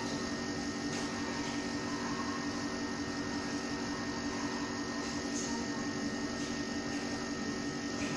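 Steady mechanical hum with a faint constant high-pitched tone and a hiss over it, unchanging throughout.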